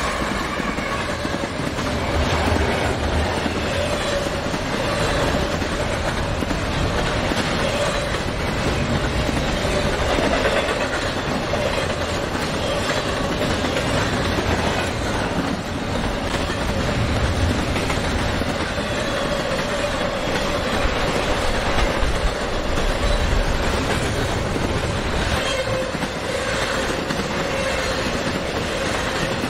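Norfolk Southern double-stack intermodal freight train rolling past: a steady rumble of wheels on rail with the clickety-clack of the cars and a faint thin tone running through it.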